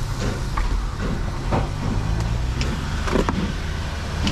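Reverse vending machine's motor humming steadily, with a few faint clicks and knocks.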